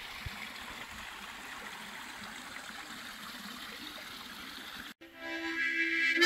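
Creek water running over rocks, a steady rushing flow. About five seconds in it cuts off sharply and music with reedy held notes begins.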